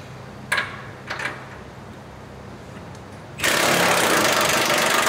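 Impact wrench hammering on the rear leaf-spring hardware, starting about three and a half seconds in and running on steadily, after a couple of light metal clinks.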